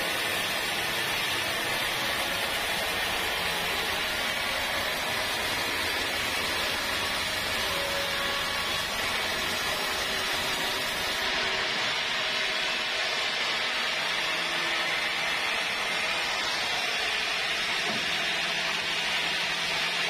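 Band sawmill blade cutting lengthwise through a teak log, a steady hiss of saw and machine with no break.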